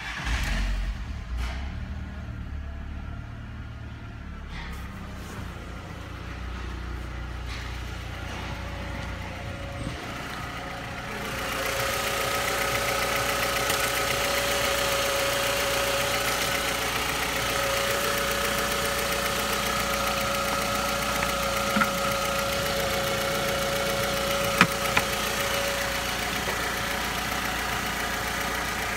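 Volkswagen Golf Mk4 1.6 AKL eight-valve four-cylinder petrol engine starting and then idling steadily. It is heard first from the driver's seat, then louder and brighter from the open engine bay about a third of the way in, with a steady whine over the idle. Two sharp clicks come near the end.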